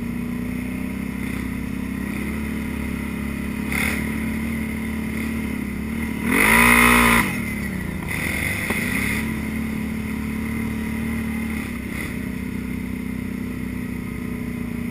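ATV engine running steadily while riding a trail, with one sharp rev that climbs and drops back about six seconds in, the loudest moment, and a smaller rev a couple of seconds later.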